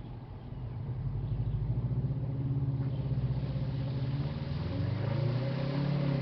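Off-road vehicle's engine revving hard at full throttle as it tries to climb out of a rocky hole on a trail. The revs build about a second in, sag a little, then climb again near the end.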